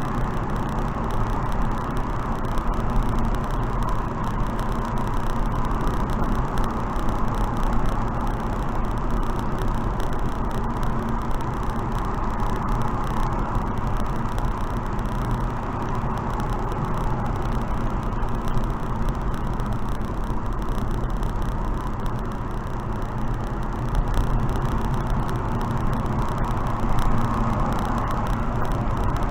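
Steady wind and road noise of a car being driven, an even rush that holds level throughout.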